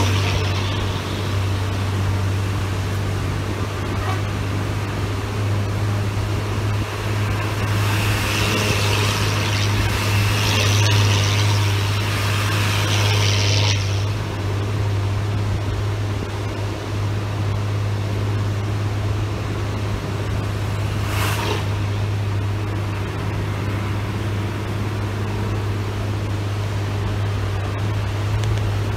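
A vehicle engine running with a steady low drone. A hiss rises over it for several seconds about a third of the way in, and there is a brief swish about three quarters of the way through.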